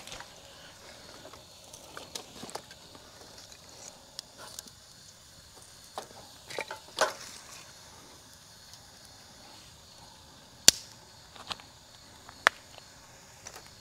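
Wood fire in a fire pit crackling, with scattered sharp pops and small knocks every second or two; the sharpest crack comes near the end.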